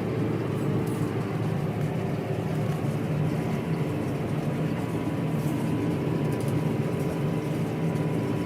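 Tractor engine running at a steady speed, an even drone while it pulls a round baler through the hay field.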